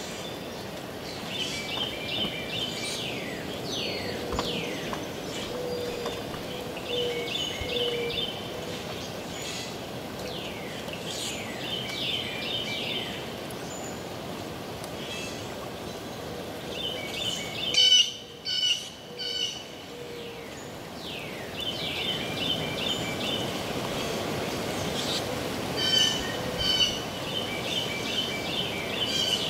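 Northern cardinal singing: phrases every few seconds of steep down-slurred whistles and quick runs of repeated notes, the loudest phrase about two-thirds of the way through, over a steady background hiss.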